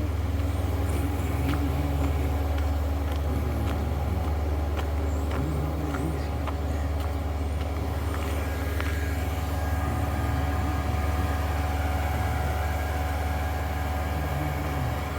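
Heavy engine running steadily: a deep, unchanging hum with a steady tone above it, from the machinery and traffic at a road-work site.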